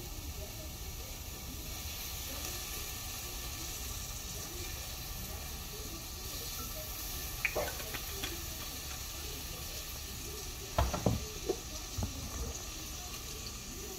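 Steady sizzling of onions frying in oil in a steel pot on the hob, with a few short knocks of utensils in the second half.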